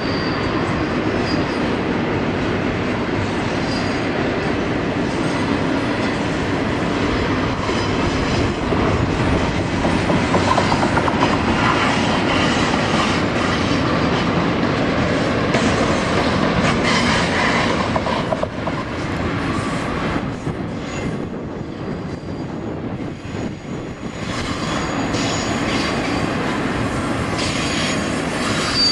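Double-stack intermodal freight train rolling past: a steady heavy rumble of the loaded cars with wheel clatter over the rail joints and a thin wheel squeal now and then. The sound drops for a few seconds about two-thirds of the way in, then picks up again.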